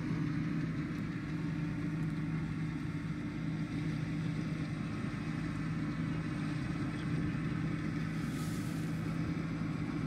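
Rice combine harvester's engine running steadily, a constant low hum.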